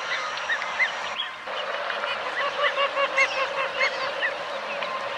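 A flock of Andaman teal calling: many short call notes from several birds at once, overlapping in quick series.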